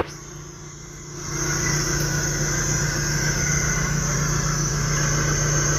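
The engine of a bucket loader running steadily at idle, ready to lift the motor out; it is faint for about the first second, then comes up and stays even with a steady high whine over it.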